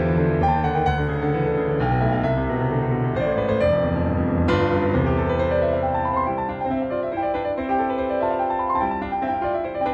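Background music: a piano melody with sustained chords.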